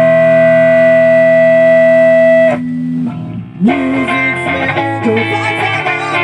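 Live rock band with distorted electric guitars: a held, ringing chord cuts off suddenly about two and a half seconds in, and after a short gap the band comes back in with guitar riffs and bent notes.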